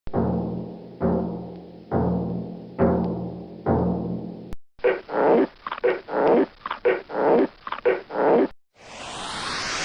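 Five deep, pitched drum strikes, about one a second, each ringing out like a timpani. A click follows, then a quick run of about ten short animal-like calls.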